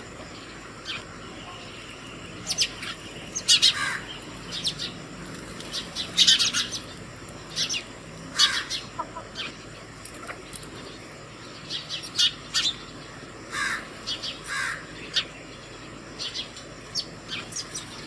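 A flock of house sparrows chirping at a seed feeder: many short, sharp chirps, scattered irregularly and sometimes in quick clusters.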